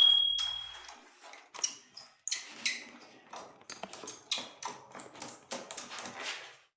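A screwdriver unscrewing the bottom-panel screws of an ASUS TUF FX504GD laptop: a sharp metallic ping at the start, then a run of short, irregular scratchy clicks and scrapes as the bit works the screws.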